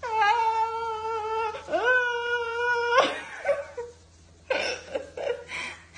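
A dog whining in two long, drawn-out howling calls, each rising at the start and then held steady, followed by a few short noisy sounds near the end.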